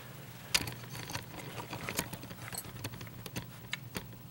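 Scattered light clicks and taps, about ten in all and the sharpest about half a second in, from a hand shifting a plastic pin tray that holds lock pins and a ring of keys, with the keys clinking; a low steady hum underneath.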